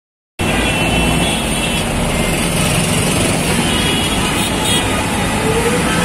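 Heavy mixed road traffic, starting abruptly about half a second in: a steady rumble of car, truck and motorcycle engines, with faint vehicle horns sounding now and then.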